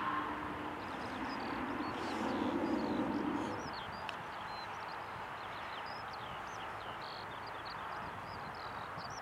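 Distant Embraer 195 airliner's turbofan engines (GE CF34-10E) running on the runway: a steady far-off jet roar that swells about two to three seconds in and then eases. Small birds chirp repeatedly over it.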